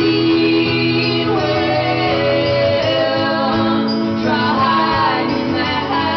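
Live acoustic folk song with female voices singing in harmony over strummed acoustic guitar, recorded from the audience with muddy, boomy sound.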